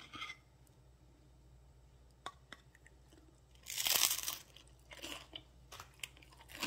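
Crunching and chewing of crispy ciabatta crust close to the microphone. The loudest crunch comes about four seconds in, followed by a few shorter, softer crunches.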